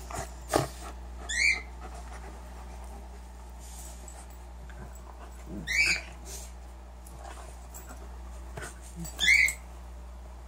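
Two dogs play-wrestling, one giving three short, high-pitched whines, each falling in pitch, a few seconds apart. There is a soft thump near the start.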